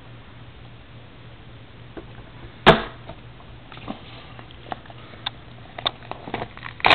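A trading card box being opened and handled: one sharp snap about three seconds in, then a run of small clicks and taps, with a louder clatter near the end.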